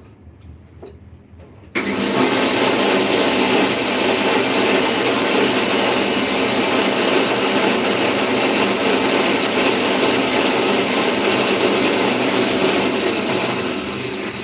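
Electric kitchen mixer grinder switched on about two seconds in and running steadily at full speed, beginning to wind down near the end.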